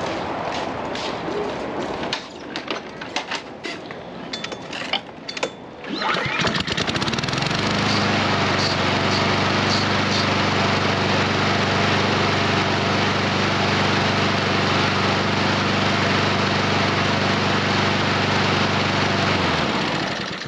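A Honda GCV170 push mower engine, test-run after a fresh oil change. After a few seconds of clicks and rattles it starts about six seconds in and runs steadily at constant speed. It winds down and stops shortly before the end, having run smoothly.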